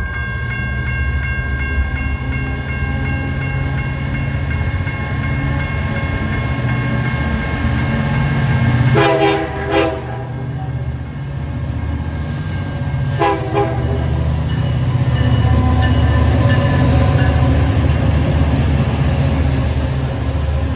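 Union Pacific freight train with SD59MX diesel locomotives rumbling through. The locomotive horn sounds about nine seconds in, a longer blast then a short one, and gives another short blast about four seconds later.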